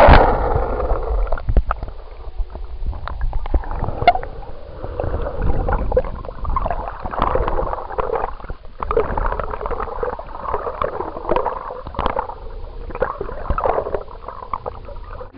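Underwater camera audio: water gurgling and rushing with bubbles, swelling and fading irregularly, with scattered small clicks over a continuous low rumble.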